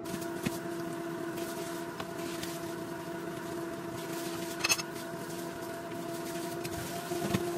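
Air fryer running at 200 °C, its fan motor giving a steady hum with a fainter higher tone above it. A single sharp click a little past halfway.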